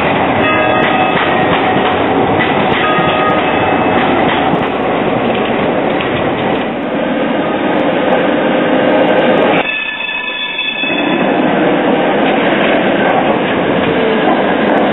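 Trams rolling along street track, wheels on rail in a steady loud rumble, with thin high-pitched wheel squeal from the curve in the first few seconds. Near ten seconds in the sound drops away and picks up again at a cut, as Tatra T3 trams follow a modern Škoda low-floor tram.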